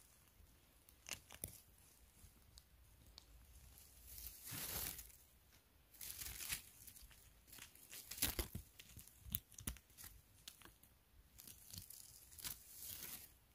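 Irregular rustling and crackling of moss, twigs and dry litter on a forest floor being disturbed, with a few sharp snaps; the loudest burst comes a little past the middle.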